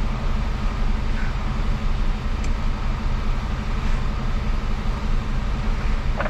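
Mercedes Actros MP4 truck's diesel engine running, heard inside the cab as a steady low drone with road and cab noise over it.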